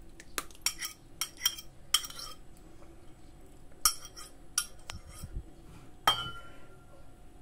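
A metal spoon clinking and scraping against a mixing bowl as the egg and sour cream filling is scraped out of it: a string of sharp, irregular clinks, some ringing briefly, with a ringing clink about six seconds in.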